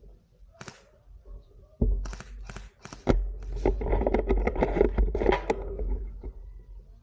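Rustling and scraping of clothing and gear close to a body-worn camera's microphone as the wearer shifts position, with low rumbling buffets. It starts about two seconds in and is loudest around three seconds in.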